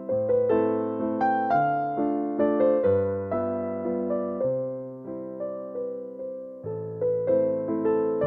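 Solo piano music playing a gentle waltz in A minor, with notes struck and left to ring over changing bass notes.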